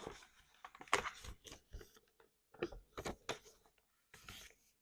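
Sheet of paper being folded and creased by hand: faint, irregular crinkles and short scrapes.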